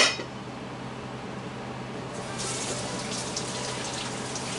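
A sharp knock at the very start, then water running steadily, fuller and louder from about two seconds in.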